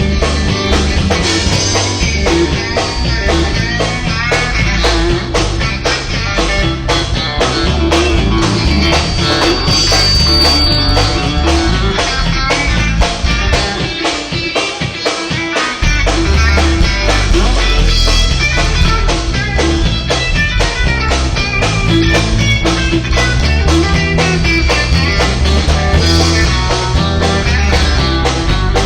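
Live rock band playing an instrumental break: guitar over bass and drum kit, with no vocals. The bass and drums drop out for about two seconds around halfway, then come back in.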